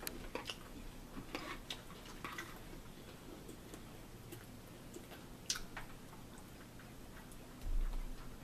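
Scattered light clicks and clinks of a fork in a bowl of salad, with eating sounds, over a faint steady low hum; a dull thump comes near the end.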